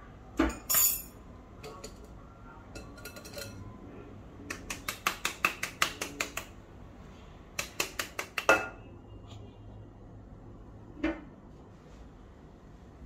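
Metal kitchenware clinking against a glass mixing bowl as flour and baking soda are added: a couple of knocks near the start, two quick runs of rapid taps in the middle, and one more knock near the end.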